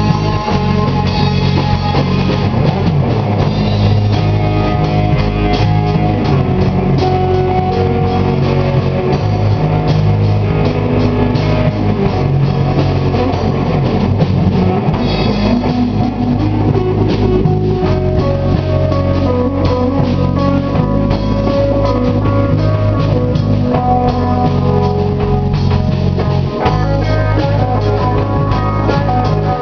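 Stoner rock band playing live: electric guitars, bass guitar and drum kit, loud and steady.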